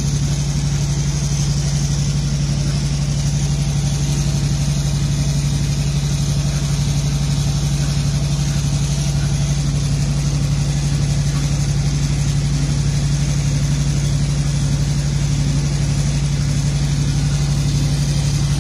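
Industrial diesel engine running steadily, belt-driving a large machine's flywheel pulley, with a strong low hum and a low beat pulsing about twice a second.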